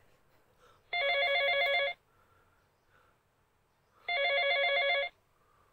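Mobile phone ringing: two trilling rings, each about a second long, about three seconds apart.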